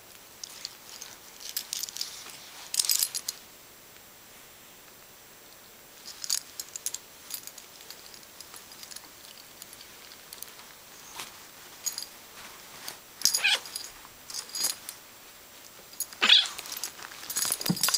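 A dog and a cat play-fighting on a bed: bursts of scuffling on the bedding and jingling from the dog's collar, with a few short animal noises, separated by quiet gaps.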